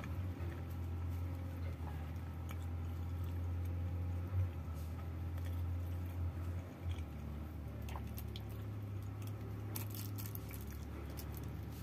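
Soft chewing and wet squishing of roti canai eaten by hand, with a few crinkles of a plastic bag of curry gravy about eight and ten seconds in, over a steady low hum.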